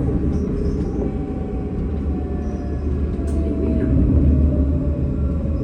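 Tram running: a steady low rumble with a thin whine that slowly falls in pitch, and a few faint clicks.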